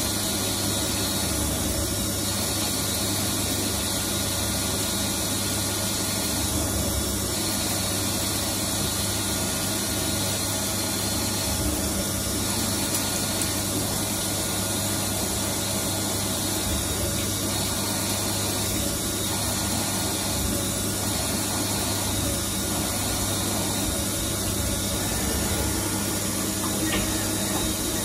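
CNC lathe running steadily while turning steel, cutting the threaded end of a ball-stud blank: a constant machine hum with an even hiss over it.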